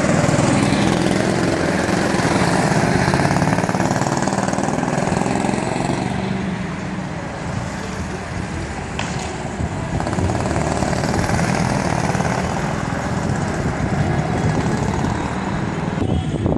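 Go-kart engines running as karts lap the track: loudest in the first few seconds as a kart passes close by, dipping in the middle, then rising again.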